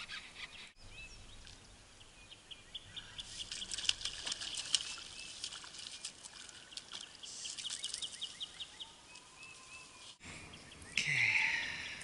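Faint outdoor ambience with a bird chirping in a rapid, even series of short high notes from about three seconds in until about nine seconds in.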